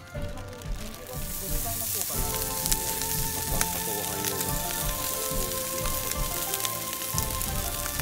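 Rice poured into a hot oiled frying pan over a campfire starts sizzling about a second in, then keeps up a steady loud sizzle as it fries.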